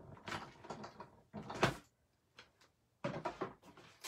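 Hand-cranked cut and emboss machine rolling a plate sandwich through to cut a window in card with a stitched-rectangle steel die, with plastic plates scraping and clacking. It comes as a few short bursts, then a pause about halfway, then more clicks and clatter.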